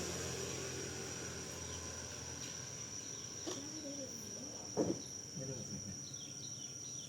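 Steady, high-pitched insect buzz, typical of a cricket or cicada, running without a break. A few short, bending vocal sounds come near the middle.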